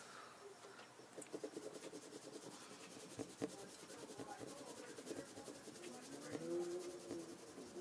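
Wax crayon scribbling back and forth on paper in a rapid run of faint, scratchy strokes. Red is being layered over blue so that the wax blends into violet.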